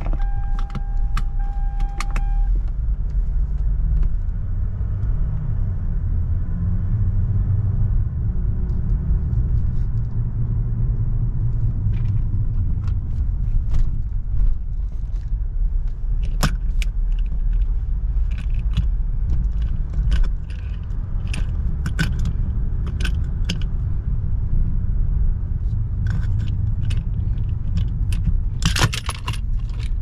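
Car cabin rumble while driving, with scattered sharp clicks and rattles throughout, clustered thickest near the end. A steady electronic tone sounds for the first two seconds or so.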